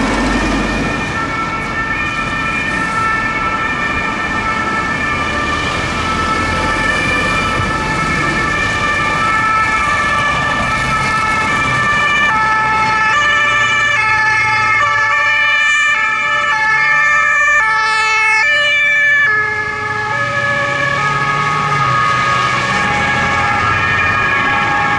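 Sirens of several unmarked police escort cars with blue lights, sounding at once at different pitches, each stepping between fixed tones rather than gliding, over the noise of the cars passing on the road. The overlapping siren tones are densest a little past halfway, then ease slightly.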